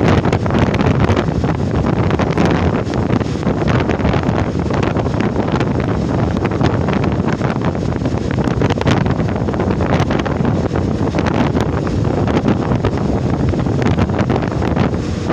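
Strong storm wind at sea buffeting the microphone without letup, with frequent sharper gusts.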